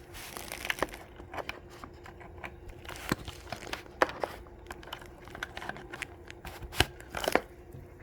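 Handling noise from a 60% mechanical keyboard: a light rustle at the start, then scattered irregular clicks and knocks, the sharpest a few about three, four and seven seconds in.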